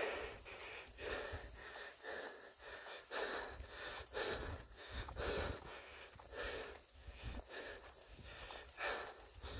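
A cyclist's heavy, labored breathing, about one breath a second: panting from exhaustion on a steep uphill climb.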